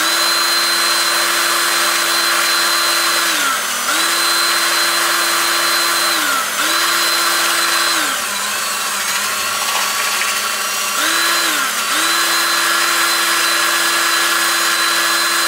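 Screw gun spinning a brake cylinder hone wrapped in oiled 400-grit sandpaper inside an engine cylinder, deglazing the bore. It runs in five spells with short pauses and a longer one in the middle, the motor whine falling away at each stop and rising again at each start over the hiss of the sandpaper.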